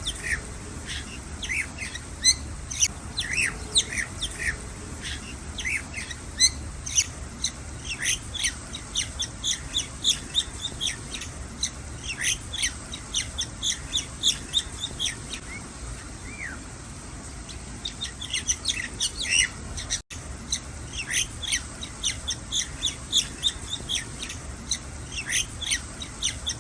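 Young birds chirping in a fast, steady string of short, high chirps, typical of nestlings begging while being fed. The chirping thins out for a couple of seconds about two-thirds of the way through, then picks up again.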